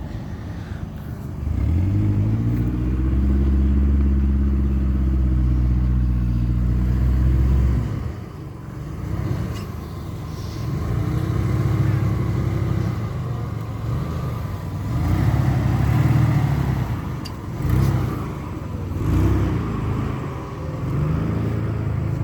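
Mitsubishi Montero Sport's engine pulling off road. The note is held steady for several seconds, drops off about eight seconds in, then surges up and down again and again as the revs rise and fall.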